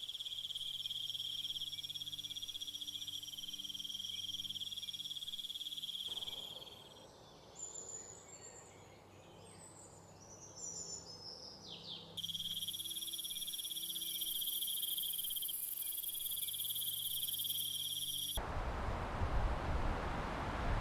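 Chorus of crickets trilling steadily at night. About six seconds in it gives way to a quieter hush with scattered bird chirps, the crickets return, and near the end it cuts to a steady rush of wind.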